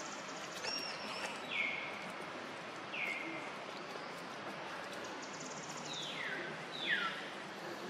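Four short high-pitched calls, each falling sharply in pitch, with two brief buzzy trills between them, over a steady outdoor hiss.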